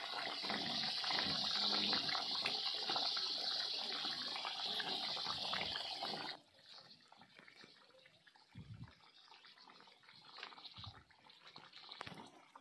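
Fish curry boiling in a kadai on a wood fire: a steady bubbling hiss that cuts off suddenly about six seconds in. After that it is much quieter, with two soft low thumps.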